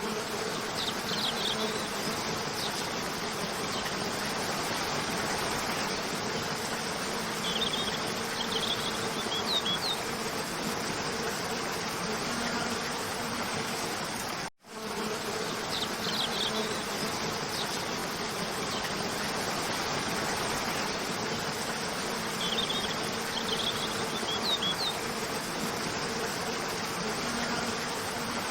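Waterfall rushing steadily, with a faint low hum and a few short high chirps over it. The sound cuts out for an instant about halfway through, and then the same stretch repeats.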